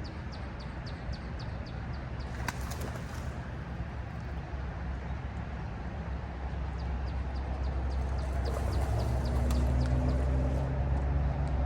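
A boat motor running with a steady low hum that grows louder over the last few seconds. Over it come two runs of quick high chirps from a bird, about four a second, one near the start and one in the second half.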